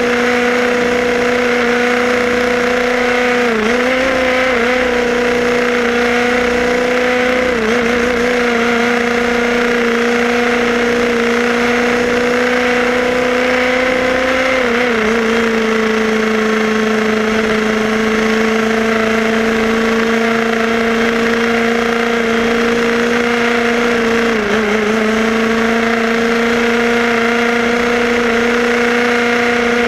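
HPI Baja 5B SS RC buggy's two-stroke petrol engine running at a steady high speed, heard from on board the car, its pitch dipping briefly four times as the throttle is eased and opened again.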